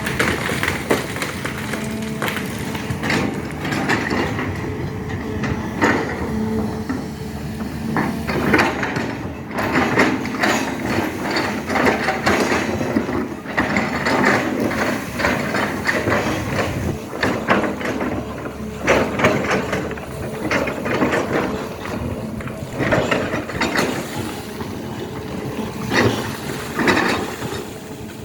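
Excavator running with a steady engine hum and many irregular clanks and knocks as it digs.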